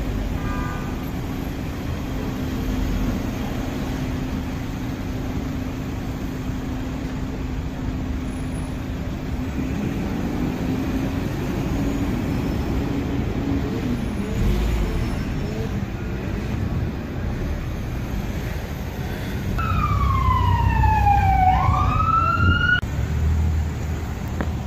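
Steady vehicle engine drone with traffic noise. Near the end an emergency-vehicle siren sweeps down in pitch and back up over about three seconds, then cuts off abruptly.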